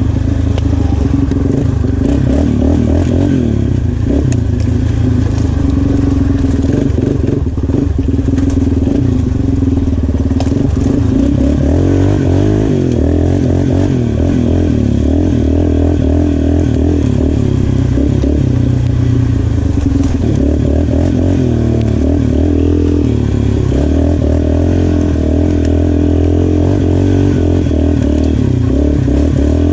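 Yamaha Raptor 350 ATV's single-cylinder four-stroke engine running under way, its pitch rising and falling as the throttle is worked. The carburetor has just been cleaned and rejetted with a 150 main jet.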